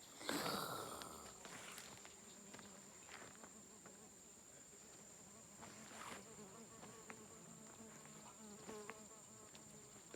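Insects chirring with a steady high-pitched tone. A brief loud rush of noise comes just after the start, and faint warbling tones follow in the second half.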